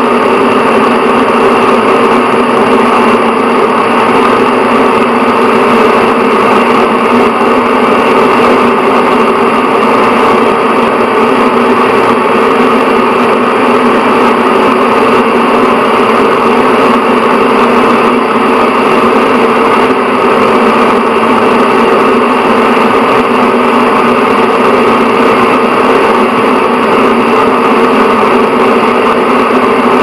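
Bathroom exhaust fan running steadily: an even rush of air with a constant low hum, unchanging throughout.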